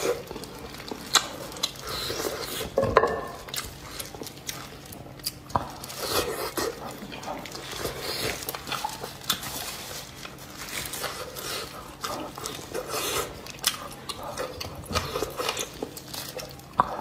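Close-miked eating sounds: wet chewing, lip smacks and sucking as sticky, gelatinous beef hoof in chili-oil broth is bitten and eaten, with the squish of plastic-gloved fingers pulling it apart. The smacks come irregularly, a few louder ones standing out.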